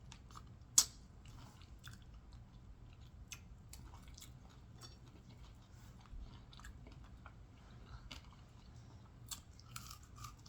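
A person chewing and biting into fried catfish close to the microphone, with soft crunching clicks throughout and one sharp click about a second in.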